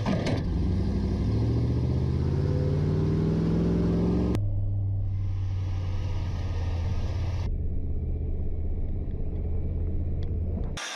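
Military truck engine accelerating as the truck drives off, its pitch climbing over the first four seconds, then running steadily at speed, heard from inside the cab. The sound changes abruptly about halfway through.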